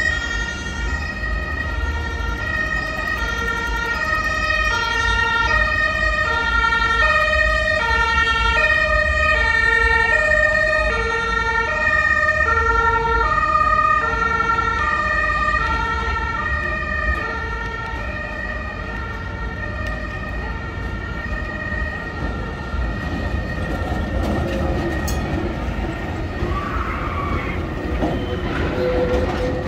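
Two-tone emergency-vehicle siren alternating between two pitches, switching about once a second, fading out after about twenty seconds. Near the end a historic tram runs past close by.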